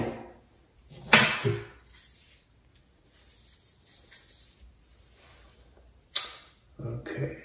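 Brief handling noises of plastic sink-drain parts: a short swish about a second in, then a single sharp plastic click about six seconds in, with near quiet between them.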